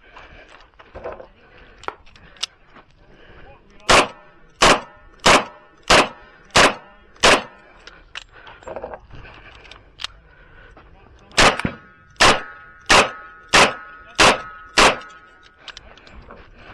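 Smith & Wesson Model 625-JM .45 ACP revolver fired in two strings of six fast shots, a bit more than half a second apart. The first string empties the cylinder, and about four seconds pass for the reload before the second string. A metallic ring hangs on after the shots.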